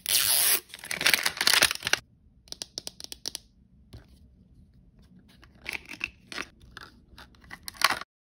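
Plastic wrapping being torn off an L.O.L. Surprise blind-bag ball, loud and continuous for about two seconds. Then scattered crinkles and clicks of plastic as the ball and its inner plastic cup are opened, with a last cluster near the end.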